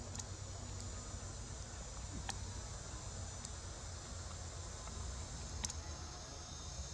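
Steady high-pitched drone of insects in the forest, with a low rumble underneath and a few scattered sharp clicks, the loudest late on.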